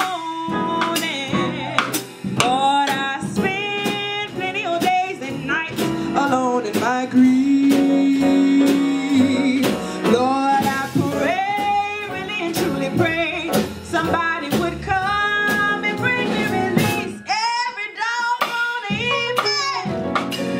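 Live jazz blues: a female singer's voice sliding and bending through long runs with no clear words, over grand piano, upright bass and a drum kit with cymbals. About seven seconds in she holds one long low note, and near the end the bass drops out for a moment.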